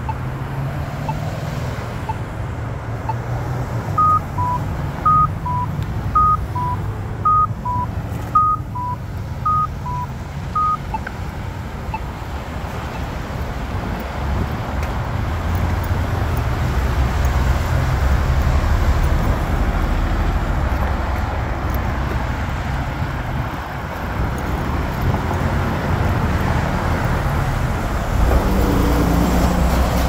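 Polara accessible pedestrian push-button station ticking faintly about once a second, then giving a string of short electronic beeps that alternate high and low, about two a second for some seven seconds. Road traffic passes throughout, louder in the second half.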